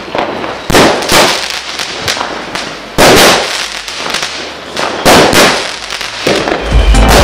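Fireworks going off: a series of loud bangs, the sharpest about one, three and five seconds in, with hissing and crackling between them. Near the end, music with a heavy bass comes in.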